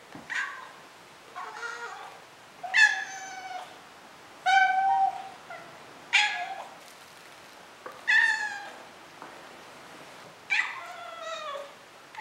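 Maine Coon kitten meowing over and over: about seven high meows, each half a second to a second long and a second or two apart, several sliding down in pitch at the end.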